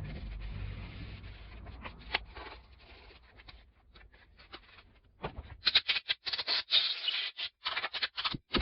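Hedge trimmer part being scrubbed clean: quiet handling and scratching over a low rumble, then from about five and a half seconds in a run of short, rapid scratchy scrubbing strokes, several a second.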